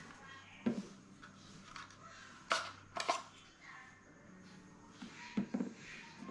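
Plastic handling clicks and knocks as drone flight batteries are taken out of the charging hub and set down on the table: a few separate clicks, the sharpest two about halfway through and another pair near the end.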